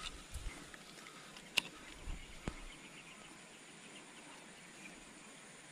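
A cast with a spinning rod and reel: a few low handling bumps, then one sharp click about one and a half seconds in, typical of the reel's bail snapping shut as the lure lands. Faint insect and bird sounds from the pond-side vegetation fill the background.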